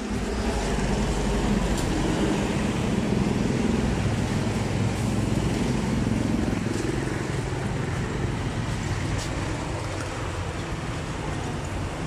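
Road traffic noise: a steady rumble of motor vehicle engines.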